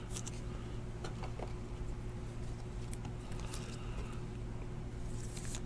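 Trading cards being handled and set down on a table: a few faint, scattered taps and slides over a steady low hum.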